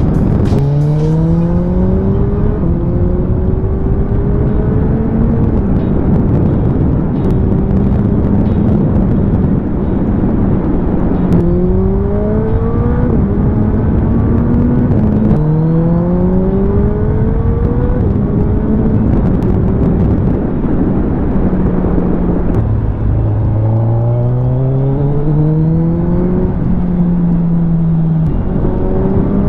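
Suzuki Hayabusa's inline-four engine pulling through the gears while riding, its pitch climbing and dropping back at each upshift, about half a dozen times, under a steady rush of wind noise.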